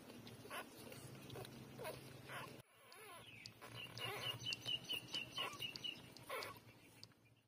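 Newborn puppies nursing: faint suckling and smacking sounds with small squeaks. In the middle there is a quick run of high chirps, about five a second, for around two seconds.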